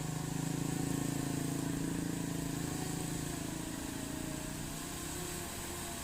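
Mitsubishi Fuso Canter Euro 4 light truck's diesel engine pulling up a steep grade, a steady drone that fades after about three and a half seconds.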